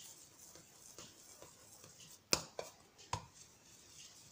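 Hands shaping a ball of soft dough against a glazed clay dish: faint handling noise, then three sharp taps over about a second a little past halfway, the first the loudest.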